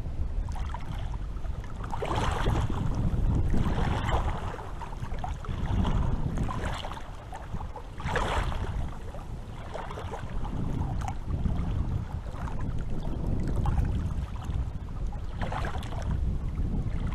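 Small sea waves lapping and splashing in swells every two seconds or so, over a steady low rumble of wind.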